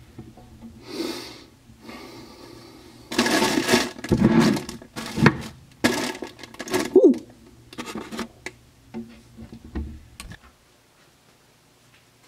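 Crinkling and rustling of a Keebler cookie package being handled while cookies are pulled out. It comes in irregular bursts with sharp crackles, loudest between about three and seven seconds in, then dies away.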